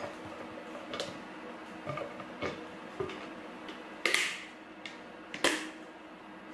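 Snap-lock plastic lid being pressed and clipped onto a glass food container: about five separate clicks and knocks, the loudest about four seconds in.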